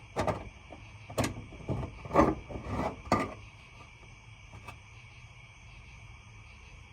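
A bolted plate being worked into a tight opening: a handful of sharp knocks and clicks in the first three seconds as the plate and its bolts strike the edges, then one faint click later.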